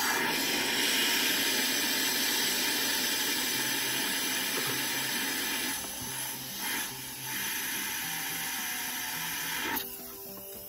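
Compressed air from a blow gun on a shop air hose, blowing steadily over a chainsaw's engine as a loud hiss. It dips briefly twice around six and seven seconds in and cuts off near the end.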